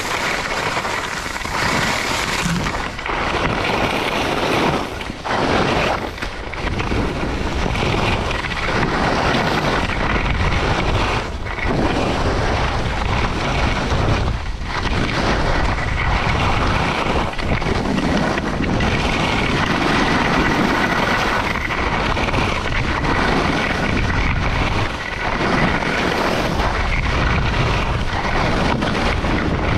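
Wind buffeting the microphone of a moving camera, mixed with skis hissing and scraping over packed, chopped-up snow on a downhill run. The rush is steady, with a few brief lulls.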